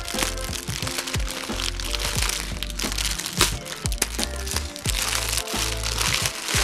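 Scissors snipping through a plastic mailer bag, with sharp clicks and the plastic crinkling, over background music with a steady bass beat.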